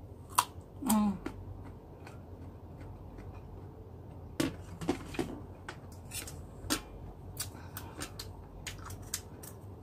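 Knife cutting and paring an unripe green mango over a metal bowl: irregular sharp clicks and short scrapes, mixed with chewing of raw mango. A short hum of a voice comes about a second in.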